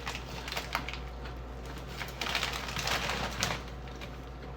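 Crunchy chips being chewed: scattered sharp crunches, with a denser, louder run of crunching from a little after two seconds in, over a low steady hum.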